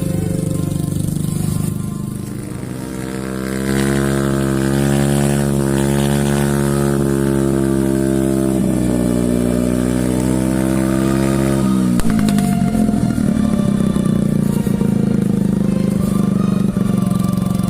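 Motorcycle engine running under load, its pitch rising and holding, then dropping suddenly twice, once midway and again about twelve seconds in.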